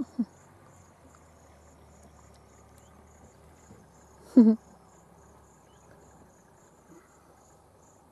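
Insects chirping steadily, a high chirp repeated about three times a second. About halfway through comes one brief pitched voice sound, the loudest thing here.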